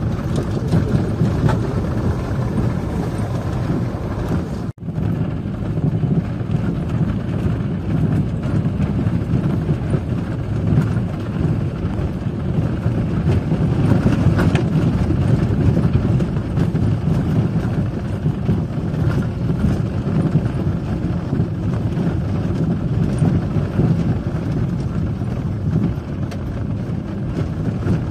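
Inside the cab of a 4x4 driving over a snowy dirt track: a steady low rumble of engine and tyres, with occasional light knocks. The sound drops out for an instant about five seconds in.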